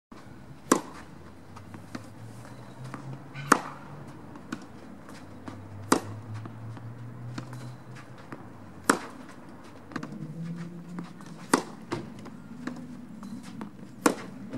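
Tennis ball struck by a racket in a baseline rally: six sharp hits, one about every two and a half to three seconds, with fainter ticks of the ball between them.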